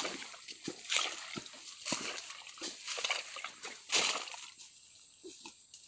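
Footsteps with rustling, one noisy step about once a second, dying away after about four seconds.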